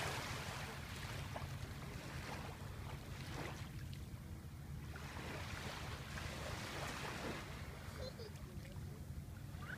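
Small waves lapping and washing at the shoreline of calm bay water, swelling and fading every couple of seconds, over a low wind rumble on the microphone.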